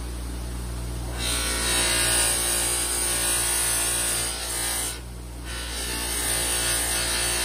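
Bench buffer motor running with a steady hum while a stabilized-wood knife handle is pressed against its spinning loose buffing wheel, giving a rubbing hiss. The hiss drops out for about the first second and again briefly about five seconds in, as the handle comes off the wheel.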